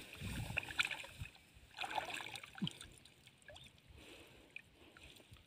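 Light splashing and trickling of shallow water stirred at the bank by hands and a hand-held net, in short bursts mostly in the first two seconds, then fainter.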